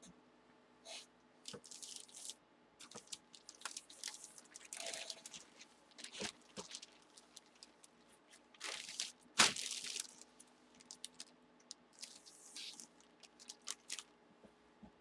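Clear plastic bag crinkling and rustling as hands handle the jersey packed inside it, in irregular bursts, with the loudest crackle about nine and a half seconds in.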